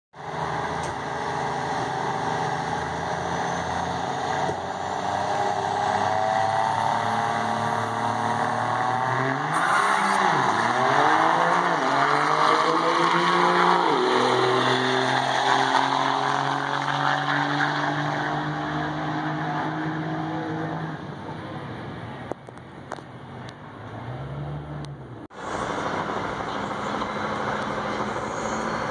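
Diesel pickup truck accelerating hard down a drag strip. The engine pitch climbs, dips and climbs again through the gear shifts, then holds steady. The sound cuts off abruptly near the end.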